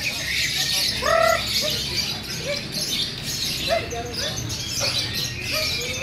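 Many caged songbirds, hung up for a singing contest, chirping and singing at once in a dense, overlapping chatter of high calls.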